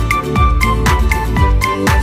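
Background music: an electronic dance track with a steady beat and a bass thump that drops in pitch on each strike.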